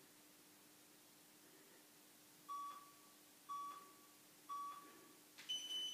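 Workout interval timer counting down: three short beeps a second apart, then a longer, higher-pitched beep that marks the end of the timed plank hold.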